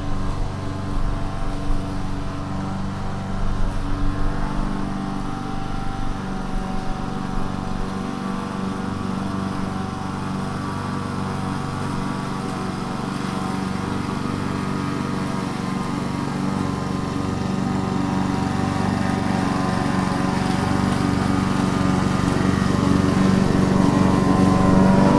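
Lawn mower engine running steadily while cutting grass, growing gradually louder through the second half.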